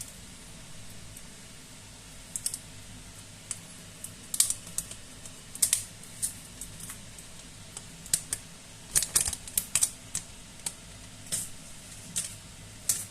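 Irregular sharp clicks and taps from a smartphone and its packaging being handled, starting about two seconds in and coming in quick clusters, over a steady low hiss.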